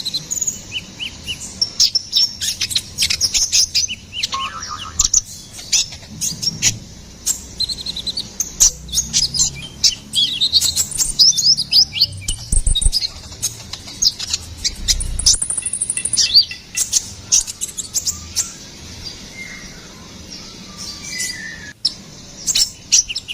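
A small sunbird, the 'konin kolibri ninja', singing a fast, busy run of thin, high chirps and short trills. There is a brief buzzy trill about two-thirds of the way in, and a sparser, quieter stretch before the dense chirping resumes near the end.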